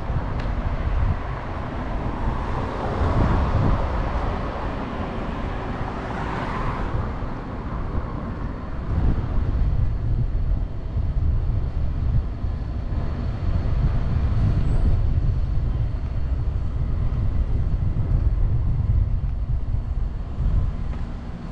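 Outdoor street ambience: road traffic running, with one vehicle swelling past in the first several seconds, over a steady low rumble.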